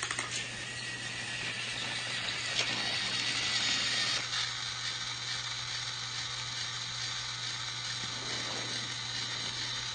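Battery-powered toy train's small motor and gears running with a steady whir.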